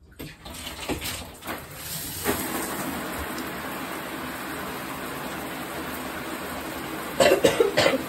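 A bathroom shower being turned on: a few knocks, then water spray that settles into a steady hiss about two seconds in. A person coughs a few times near the end.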